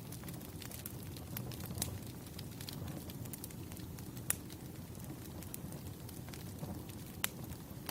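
Burning firewood crackling, with irregular sharp pops over a steady low rumble; the loudest pops come about four seconds in and again near the end.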